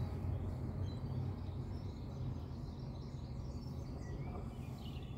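Outdoor background: a steady low hum with a few faint bird chirps now and then.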